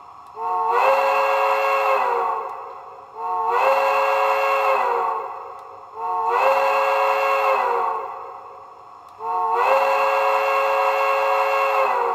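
Steam locomotive whistle played by a model locomotive's Tsunami 2 sound decoder: four long blasts, each about two seconds. The pitch slides up as each blast starts and down as it ends.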